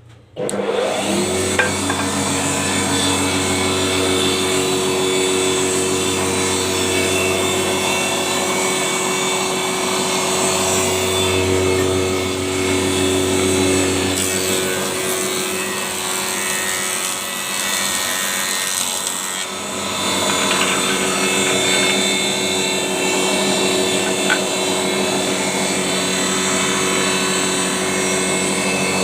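A power wood-smoothing machine switches on, its motor whine rising to a steady pitch within about a second, then runs steadily with a rasping noise of wood being worked.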